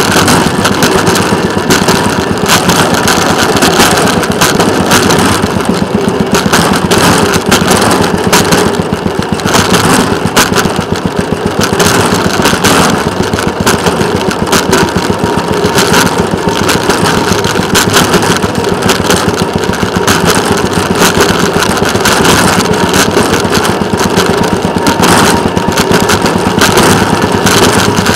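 Small engine of a rail motorcar (speeder) running steadily under way along the track, loud and close.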